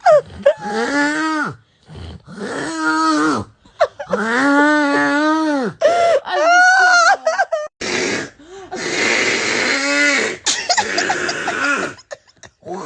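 A person making strange, exaggerated snoring noises: a run of long moaning sounds, each rising and falling in pitch, then a long rasping, breathy noise near the end.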